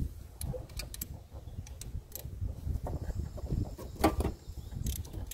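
Scattered sharp clicks and knocks of a hand driver working against a convertible-top hydraulic pump as a plug is unscrewed from its side, with the loudest knocks about four seconds in, over a low rumble.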